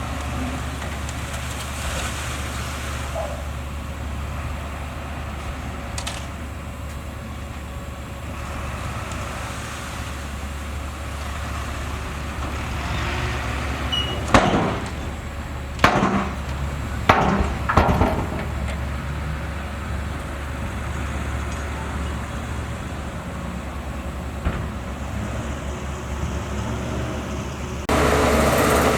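Bulldozer diesel engine running steadily, with a few loud metallic clanks about halfway through, and the sound turning suddenly louder near the end.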